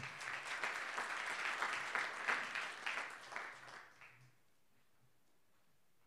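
Audience applauding with many hands clapping at once; the clapping thins out and dies away about four seconds in, leaving quiet room tone.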